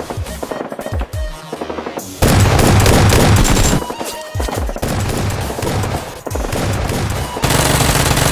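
Rapid automatic gunfire sound effects in several long bursts over background music, the loudest burst starting about two seconds in.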